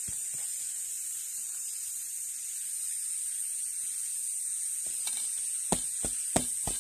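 Chili bean paste being spooned into a plastic jar, with a few sharp taps and knocks of the spoon and jar near the end, over a steady high hiss.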